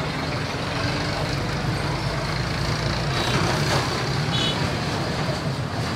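Steady rumble of road traffic with engines running, and a brief high beep about four seconds in.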